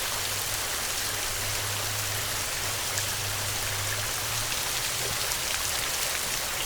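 Heavy rain falling, a steady dense hiss. A low rumble sits under it for the first four seconds or so, then fades.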